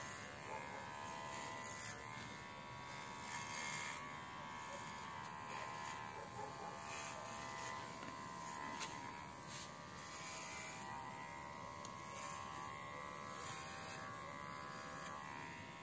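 Baorun P2 cordless pet clipper buzzing steadily as it clips a dog's thick coat.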